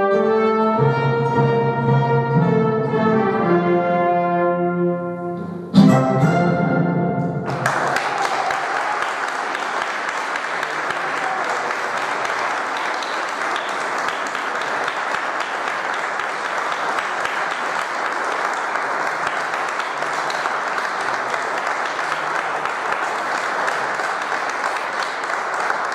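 An instrumental ensemble of violins, classical guitars, cello, double bass, keyboard and brass plays the closing bars of a piece, ending on a loud final chord about six seconds in. Sustained audience applause follows for the rest.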